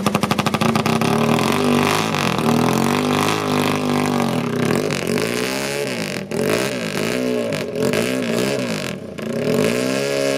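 Vintage dustbin-faired racing motorcycle's engine, just fired up, running with rapid, even firing pulses and then revved up and down in repeated throttle blips, its pitch rising and falling again and again.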